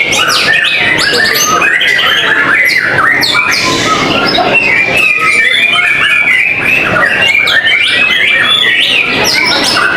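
White-rumped shamas (murai batu) singing in full contest song: a loud, unbroken jumble of rapid whistles, sliding notes and chattering phrases from several birds at once.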